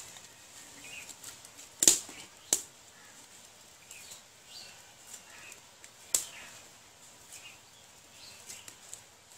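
Wood fire crackling: three sharp pops, two about half a second apart near two seconds in and another about six seconds in. Faint bird chirps sound in the background.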